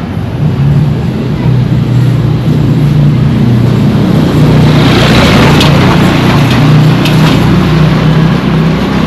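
A motor vehicle's engine running close by with a steady low hum, its noise swelling about five seconds in as it draws near, with a few sharp clicks.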